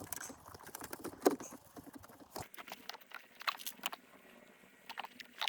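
Irregular light clicks, taps and rustling of hand tools and hardware being handled, the loudest tap about a second in.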